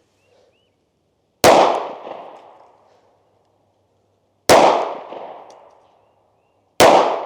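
Three shots from a Ruger LC9s compact 9mm pistol, the second about three seconds after the first and the third about two seconds later, each trailing off over about a second and a half.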